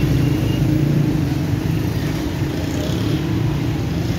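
Steady low engine rumble of motor traffic, running without a break.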